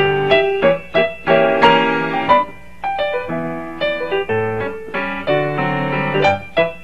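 Solo piano music: struck chords with melody notes over them, notes changing every fraction of a second.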